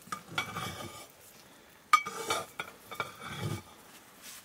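A long metal ladle stirring rice in a metal cooking pot, scraping and clinking against the pot in several short strokes, with one sharp clink about two seconds in.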